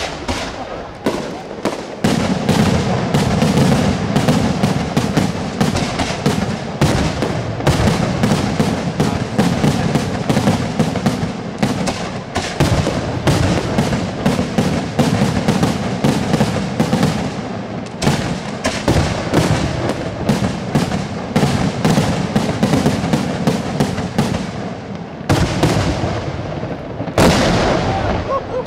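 A daytime fireworks battery of the San Severo style: ground charges and aerial shells banging in rapid, almost unbroken succession. The reports run together into a dense, continuous barrage with a heavy low rumble, after a few separate bangs at the start.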